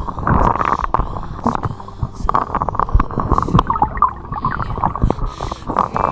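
Underwater noise picked up by an action camera during a spearfishing dive: a muffled low rumble with many irregular clicks and crackles.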